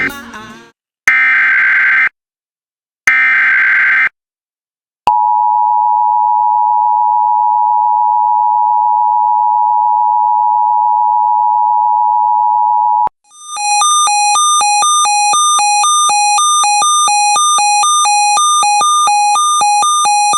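Emergency Alert System broadcast tones. First the end of one header data burst and two more buzzy one-second bursts of coded data, a second apart. Then the EAS two-tone attention signal (853 and 960 Hz) held steady for about eight seconds. Then a warbling electronic alert tone that jumps between several pitches about twice a second for about seven seconds.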